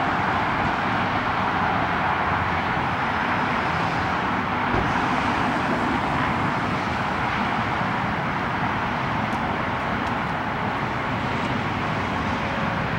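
Steady road traffic noise from passing cars, an even hiss of tyres and engines with no single engine or rev standing out.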